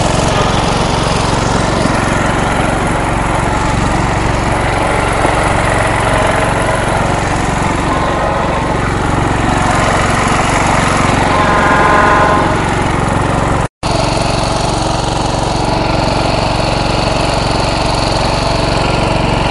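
MTD riding lawn mower engine running steadily under way, swelling a little about twelve seconds in. The sound cuts out for an instant just before fourteen seconds.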